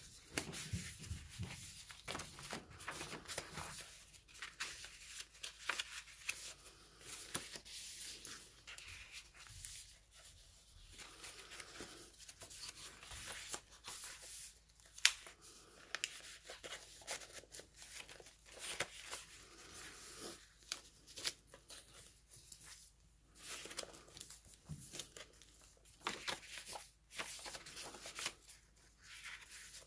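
Paper rustling and crinkling as the layered pages, tucks and cards of a handmade paper journal are turned and handled, with irregular soft taps and one sharper tap about halfway through.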